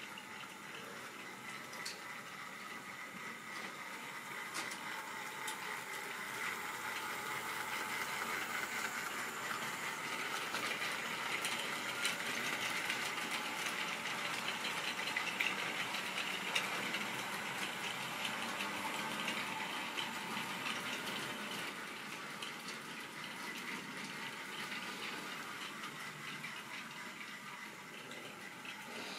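OO-gauge model train running along the layout's track, a steady rolling rattle of wheels on rail. It grows louder as the train approaches, is loudest about halfway through, and fades as it runs away.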